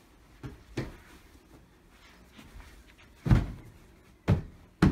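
Dull thuds of upholstered IKEA couch sections being knocked and pressed into place during assembly: two light knocks in the first second, then three loud thumps in the second half.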